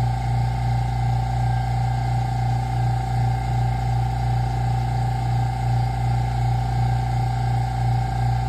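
Oil-filled vacuum pump running steadily while pulling a vacuum on the line: a steady low hum with a slight regular pulse and a steady whine above it.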